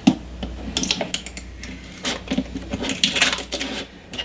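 Irregular clicks, taps and light clatter of computer hardware being handled and fitted into a PC case.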